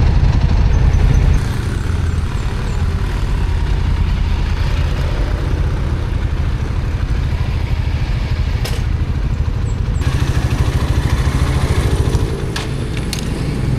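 Motorcycle engine running with a steady low rumble, a little louder for the first second and a half.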